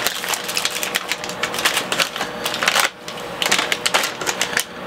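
Plastic snack bag being torn open and handled, a dense run of crinkles and crackles with a short pause about three seconds in.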